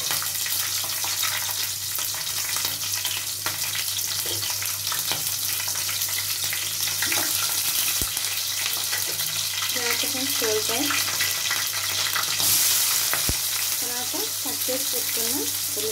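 Green chillies and mustard seeds sizzling steadily in hot oil in an aluminium pot. Partway through, sliced onions are tipped in and the sizzle gets louder.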